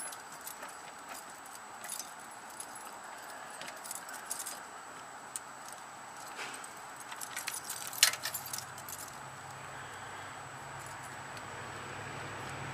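Keys on a ring jangling while loose keys are tried in a Craftsman tool box lock, with scattered metallic clicks and scrapes; the sharpest click comes about eight seconds in. A low steady hum builds up in the second half.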